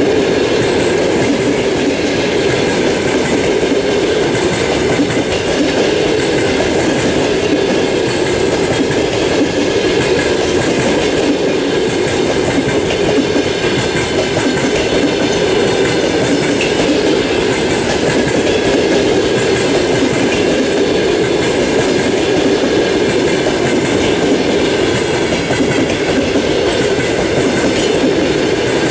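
A long train of passenger coaches rolling past close by without stopping: a steady, loud rumble of steel wheels running on the rails.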